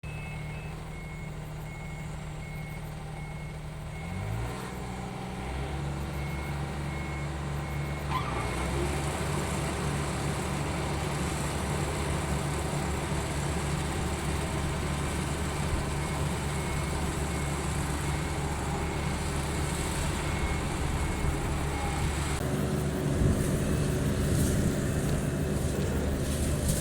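Yanmar GC333 combine harvester running, its engine revving up about four seconds in and then running steadily with the machinery working. A faint high-pitched beeping repeats through it until a change in the sound near the end.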